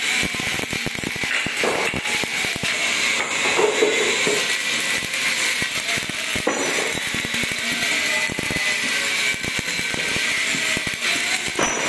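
Stick (shielded metal arc) welding arc burning steadily on steel plate, a continuous dense crackle and sizzle.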